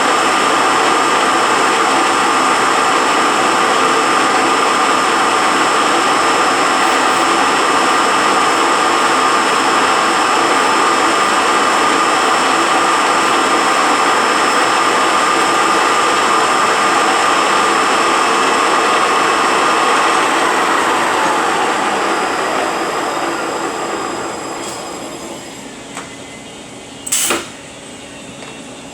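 Rebuilt Eaton Fuller RTO-14908LL truck transmission running on a test dyno, its gears giving a steady whine over the mechanical running noise. About twenty seconds in it winds down and fades, and one sharp metallic clank comes near the end.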